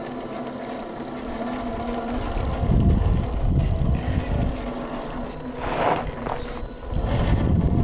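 Electric motor and gears of a radio-controlled scale Land Rover Defender 90 truck whining steadily as it crawls through mud and shallow water. There are louder low rumbles around three seconds in and again near the end, and a short hiss of churned mud and water near six seconds.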